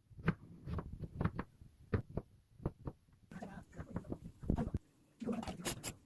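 A kitchen knife knocking on a cutting board in uneven strokes, about two to three a second, cutting radish into strips; the second half is busier, with rougher noise between the knocks.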